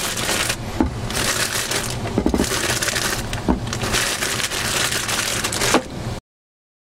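Plastic bag crinkling and rustling as carrots are taken out of it by hand. The sound stops abruptly near the end.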